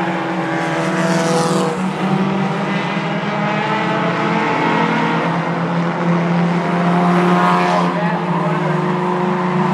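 Four-cylinder short-track race cars running laps in a pack, engines droning steadily, with cars passing close about a second in and again around seven seconds in.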